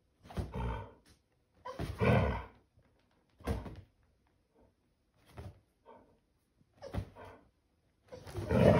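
Yellow Labrador retriever making play vocalizations at another dog: about seven short, separate grumbling bursts, the longest near a second, with gaps of silence between them.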